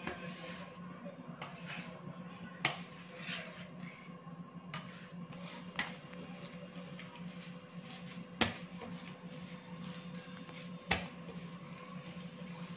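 Bread dough being kneaded by hand on a stone countertop: soft pressing and rubbing with four sharp knocks about three seconds apart, the loudest about two-thirds of the way through. A steady low hum runs underneath.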